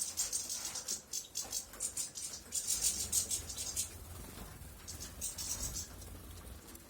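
European goldfinch singing: fast, high twittering and chattering phrases. The song breaks off about four seconds in and returns for a short phrase a second later.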